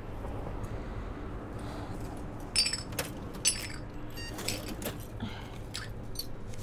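Shards of a broken glass bottle clinking against each other and the floor as they are picked up by hand: a handful of light, ringing clinks from about two and a half seconds in, over a low steady hum.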